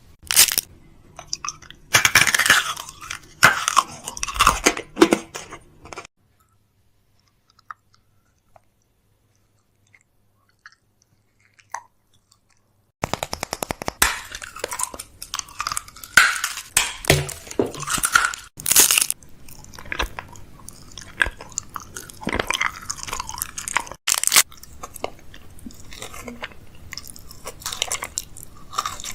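ASMR mouth sounds: dense wet clicks and crunchy, chewing-like crackles. They break off about six seconds in and start again a few seconds later.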